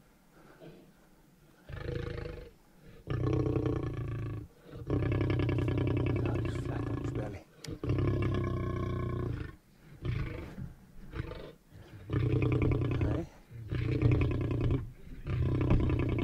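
A lion at bay growling again and again, in long bursts of a second or two with short breaks between, starting about two seconds in.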